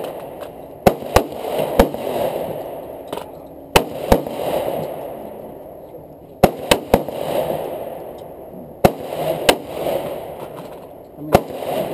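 Handgun shots: about a dozen sharp reports at uneven intervals, some fired in quick pairs or threes, each trailing off in echo.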